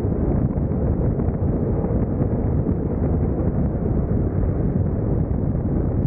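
Steady wind noise buffeting the microphone of a camera on a moving motorcycle, a dense low rush with no break.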